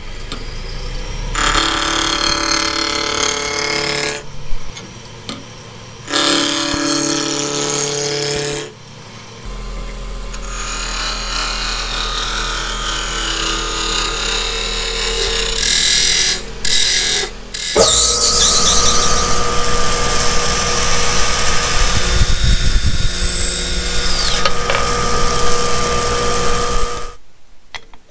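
Wood lathe running while a turning tool cuts into a spinning wooden blank, heard in several abruptly changing stretches of loud cutting noise over the machine's steady hum. A steady whine runs through the last long cut, and the sound drops away just before the end.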